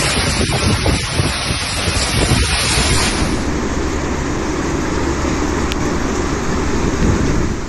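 Loud, steady rushing noise of a rainstorm, with rain and wind buffeting the microphone and a low rumble underneath. The high hiss thins about three seconds in.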